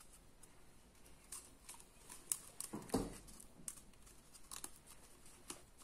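Faint rustling and scattered small clicks of a paper cut-out being handled and pressed onto a cardboard tube, with a soft knock about three seconds in.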